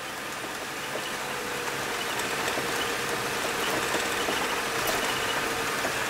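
Cab noise of a school bus on the move: engine and road noise from a dirt road, with the dash heater-AC blower blowing air through the vents. A steady hiss with a faint steady hum, building slowly louder.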